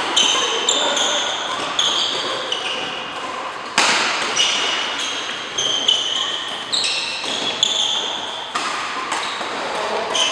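Badminton doubles rally: court shoes squeaking in short high chirps on the mat, with sharp smacks of rackets hitting the shuttlecock, the loudest about four seconds in, ringing in a large hall.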